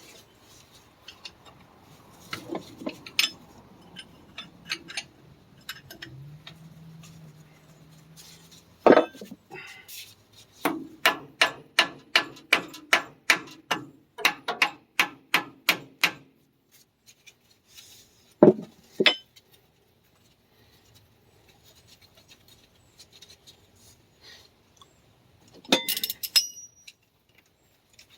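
Hand tools working metal parts on a Ford 1910 tractor's front axle: scattered metal clinks and knocks, then a steady run of sharp metal strikes, about three a second for some five seconds. A loud clatter of metal comes near the end.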